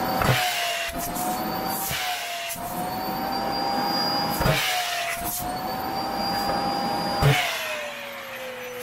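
Vacuum cleaner running against a sock: a steady motor whine that wavers slightly in pitch, with several brief surges of rushing noise as the nozzle sucks at the fabric. The whine drops lower about seven seconds in.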